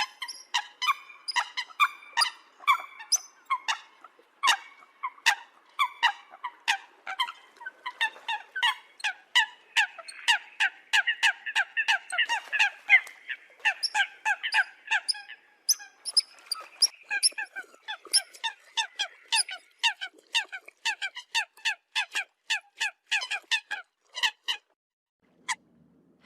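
Eurasian coots calling: a rapid run of short, sharp honking calls, several a second and thickest in the middle, breaking off near the end after one last call.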